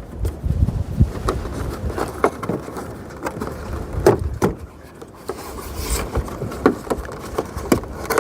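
Plastic truck hood trim and push-rivet parts being handled: scattered light clicks and knocks with rubbing and scraping, and a sharper click near the end.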